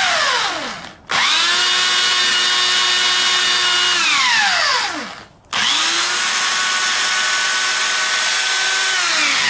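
Corded electric drill spinning a fan-motor alternator at full speed. A run winds down with a falling whine in the first second. Then come two steady runs of about three and four seconds, each starting with a quick rising whine and the first ending in a falling whine as the drill coasts to a stop.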